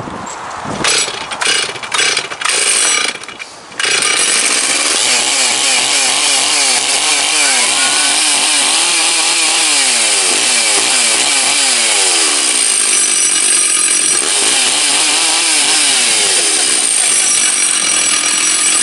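Stihl 036 two-stroke chainsaw being pull-started: a few short sounds from the starter, then the engine catches about four seconds in and runs, revved up and down over and over. It runs well now that a new crankshaft seal is fitted; the owner blames the old used seal for its poor running before.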